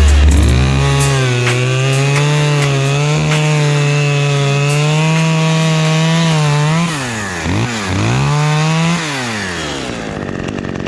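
Husqvarna chainsaw at full throttle cutting spruce, its high engine note holding steady with slight dips under load. About seven seconds in the throttle is let off and opened up twice, then released to idle near the end.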